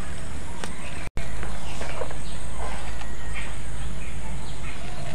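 A small hand sickle digging and scraping in dry soil, with short bird chirps over a steady low rumble; the sound drops out for an instant about a second in.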